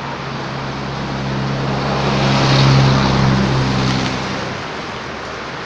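An engine hum that swells to a peak about two and a half seconds in, then fades out by near the end, over a constant hiss of background noise.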